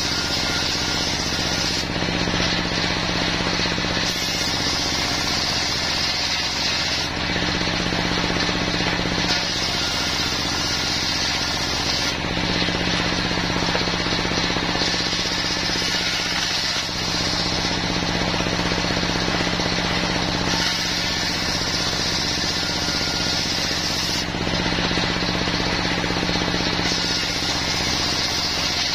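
Portable circular sawmill run by a stationary diesel engine: the engine runs steadily while the large blade rips wadang planks. The high cutting noise swells for a few seconds at a time as a plank is pushed through and eases between cuts.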